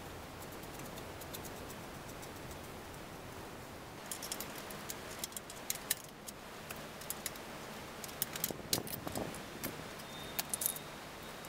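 Metal hand tools and small bicycle parts clinking as a wrench works on the rear axle fittings of an electric-assist bicycle. Sharp metallic clinks come in clusters, starting about four seconds in and thickest near the end.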